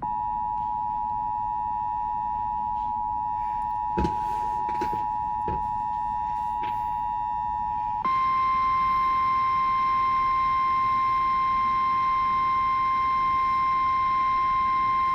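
Emergency Alert System two-tone attention signal, a steady chord of two tones held for about eight seconds, then switching abruptly to the single steady weather radio warning alarm tone. It announces that a new warning message follows. A few faint knocks come in around four to five seconds in.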